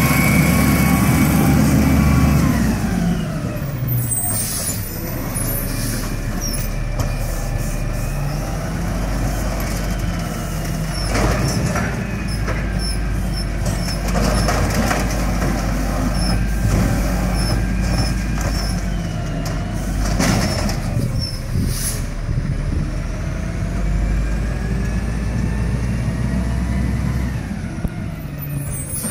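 Natural-gas Peterbilt 320 garbage truck with an Amrep Octo automated side-loader arm working: the engine revving up and down to drive the hydraulics while the arm lifts and tips a recycling cart, with a few short air-brake hisses.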